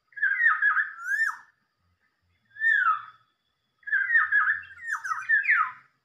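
Black-naped oriole (kepodang emas) calling in three phrases of slurred, whistled notes. The first phrase lasts over a second, a short falling note comes just before halfway, and a longer run of notes starts past halfway.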